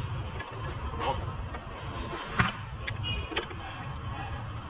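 New coil-spring strut assembly knocking against its mounts as it is guided into the suspension, a few light metallic knocks, the sharpest about halfway through, over a steady low shop hum.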